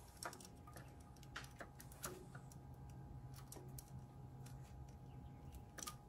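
Faint, irregular metallic clicks and ticks as a steel timing chain and cam phaser sprocket are handled and fitted onto the camshaft, over a steady low hum.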